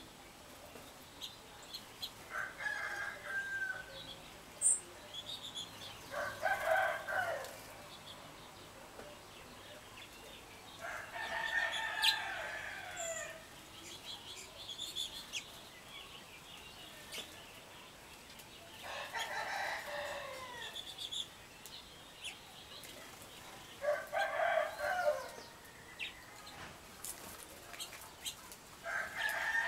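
A rooster crowing again and again, six times, each crow lasting one to two seconds; the crow near the middle is the longest. Small songbirds chirp faintly in between.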